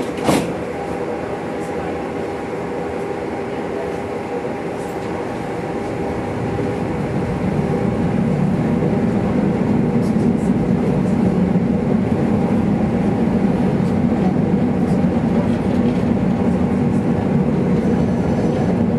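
Helsinki tram running along its rails: a steady rolling noise with a sharp clack at the start, growing louder and heavier from about seven seconds in.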